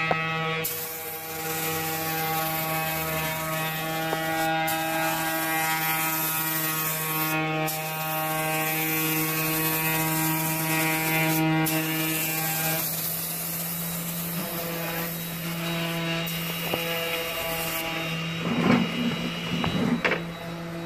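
Gravity-feed air spray gun hissing in long passes as clear coat is sprayed, cut off briefly a few times when the trigger is let go, over the steady hum of the air compressor feeding it. The spraying stops near the end, followed by a couple of short loud knocks.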